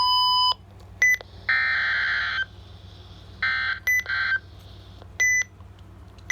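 Weather alert radios going off for a severe thunderstorm warning. A half-second tone opens, then short electronic alert beeps and two buzzy, screeching bursts of EAS header data, each about a second long, with quiet hiss between.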